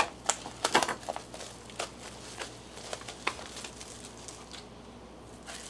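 Plastic wrap being peeled off a foam tray of steak, crinkling and crackling in a few separate snaps that thin out in the second half.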